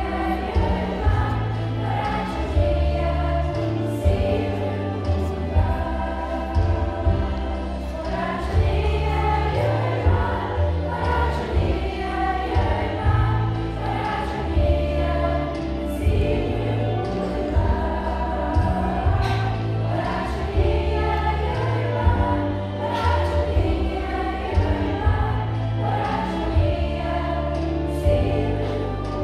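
Children's choir singing a song over instrumental accompaniment with a prominent bass line that changes note every second or two, and occasional percussion hits.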